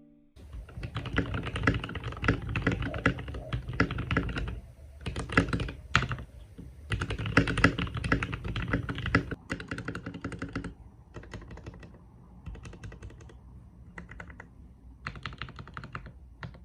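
Typing on a GMMK Pro 75% mechanical keyboard with lubed Gateron Milky Yellow linear switches on an aluminum plate and Cherry-profile PBT keycaps. Fast continuous typing runs for about nine seconds, then it slows to spaced-out bursts of keystrokes.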